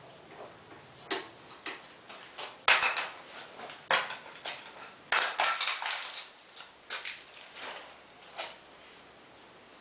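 Hard metal parts and tools clinking and knocking as they are handled, with one sharp clank about three seconds in and a burst of clattering about halfway through.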